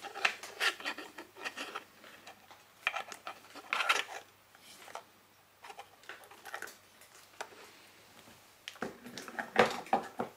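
Handling noise: plastic speaker enclosures, the sound module and its wires being picked up, rubbed and set down on a table, as irregular clicks, scrapes and rustles, with the loudest knocks near the end.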